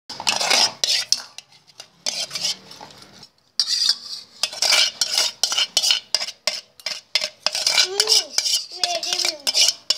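Metal fork scraping and clinking against a stainless steel bowl as a toddler scoops noodles, in quick irregular strokes with a short pause about a third of the way in.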